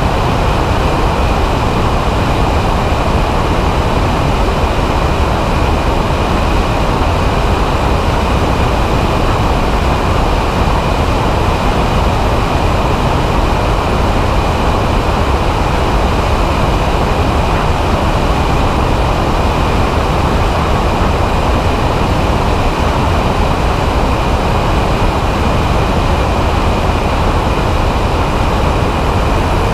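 Microlight trike's engine and pusher propeller running steadily in cruise flight, mixed with heavy wind rush on the wing-mounted camera's microphone.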